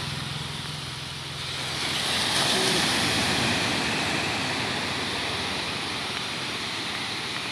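Surf breaking and washing up the beach as a steady rushing wash that swells about a second and a half in. A steady low hum runs under the first second or so, then fades out.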